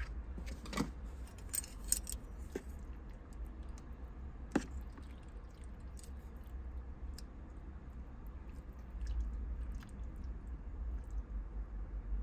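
Scattered light clicks and taps of small objects being handled in a car's cabin, the sharpest about halfway through, over a low steady rumble.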